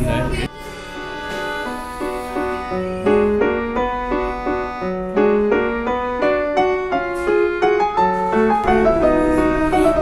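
Background music: a keyboard melody of short notes stepping up and down at an even pace.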